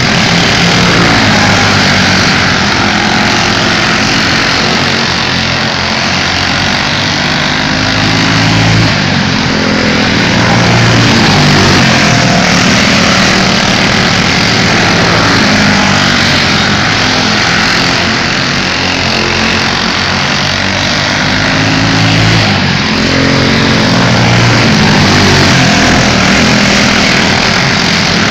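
Engines of several small race cars running continuously as they lap, the pitch rising and falling as they speed up and slow.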